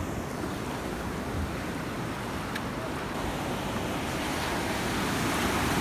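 Ocean surf breaking and whitewater washing through the shallows, a steady rushing that grows a little louder near the end.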